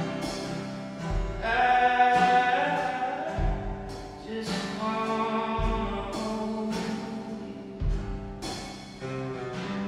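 Acoustic duo performing live: a man singing over acoustic guitar and a Gretsch drum kit, the kick drum landing about every two seconds.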